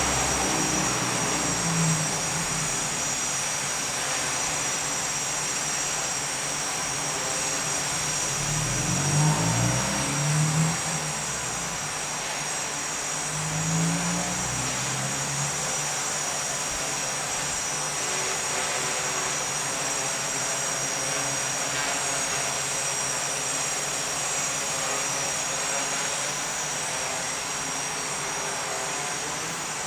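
Small propeller aircraft running steadily, with a constant high whine and a few brief swells about a third and halfway through.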